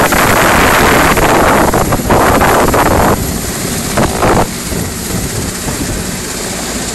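Mi-17-type military transport helicopter taking off from close by: loud rotor and turbine noise with rotor downwash buffeting the microphone. About three seconds in the noise drops as it pulls away, with one brief surge just after, then it fades steadily as it flies off.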